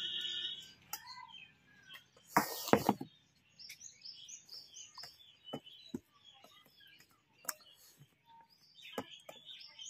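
Hand-eating sounds: fingers working rice in a steel bowl, with short clicks and mouth smacks and a louder cluster of sharp clicks about two and a half seconds in. Small birds chirp in the background, a run of quick chirps near the middle and again near the end.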